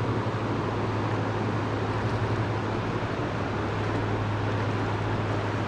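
Steady rush of a fast-flowing river running over rocks.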